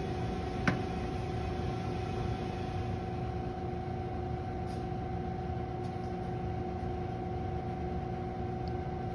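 Steady machinery hum with two constant tones over an even rushing noise, the background of commercial kitchen equipment. One light click sounds under a second in.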